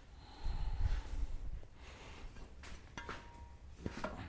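Low thumps of a heavy electric motor being carried and lifted, then a few sharp metal knocks and a brief ringing clink as its steel adapter plate is set against the tractor's frame for a test fit.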